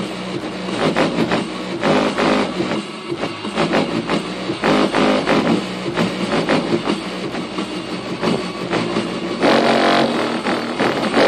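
Car audio system playing loud, bass-heavy music through a Ground Zero GZPW 12 Limited subwoofer, heard from outside the car.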